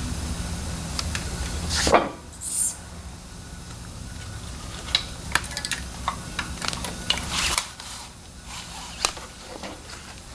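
Light metallic clicks, clinks and knocks of hand tools and car parts being handled, with a louder knock about two seconds in, over a low steady hum that stops about three quarters of the way through.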